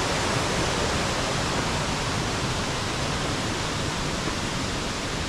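Steady rush of falling water from a waterfall on the Borovniščica stream, which is running high.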